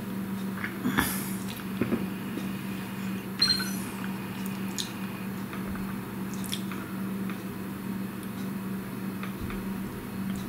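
Steady low hum with a few small clicks and taps scattered over it, the loudest about one, two and three and a half seconds in.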